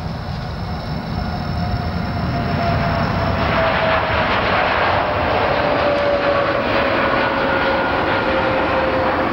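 Boeing 787-8 Dreamliner's twin turbofan jet engines at takeoff thrust as the airliner lifts off and climbs away. The roar grows louder about three seconds in, with a whine that slowly falls in pitch.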